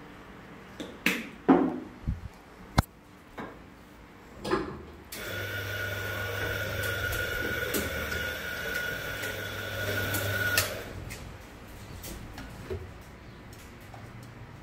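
A few sharp knocks and clatters of espresso equipment, then an electric coffee grinder runs for about five seconds, a steady hum with a high whine, and stops suddenly.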